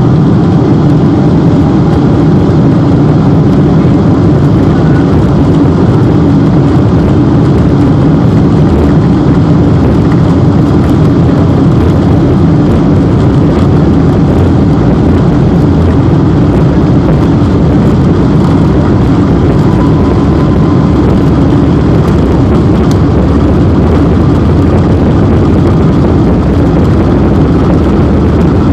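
Boeing 747-8's four GEnx turbofan engines running, a loud, steady rumble with rushing noise that holds without letting up.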